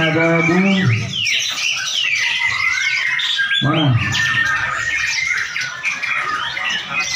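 Many caged competition songbirds singing at once, a dense mix of overlapping chirps, trills and squawks. A man's drawn-out call rises over them near the start, and a short one comes about four seconds in.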